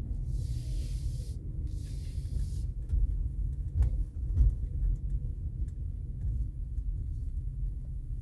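Low rumble of a car driving slowly, heard inside its cabin, with a couple of short knocks about four seconds in. A high hiss comes and goes twice during the first few seconds.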